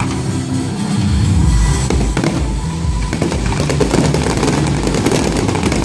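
Aerial fireworks bursting, with deep booms from about a second in and dense crackling later, over music playing.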